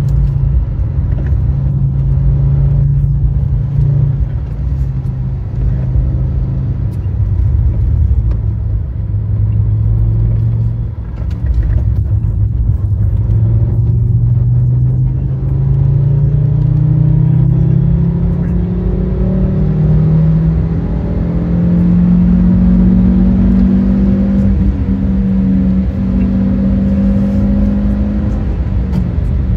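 Fiat Stilo Abarth's 2.4-litre 20-valve five-cylinder engine under way at track pace. Its note sags in the first third, then climbs steadily through a long pull from about a third of the way in, holds near the top, and dips briefly near the end. Steady road noise runs underneath.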